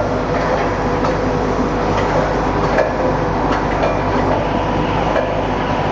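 Automatic plastic bottle cap assembling and slitting machines running: a steady mechanical rattle and hum with irregular light clicks throughout.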